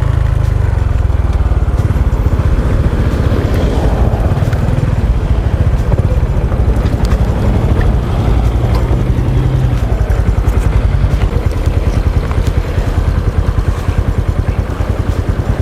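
Honda XRM 125's single-cylinder four-stroke engine running steadily as the motorcycle is ridden, a fast low pulsing.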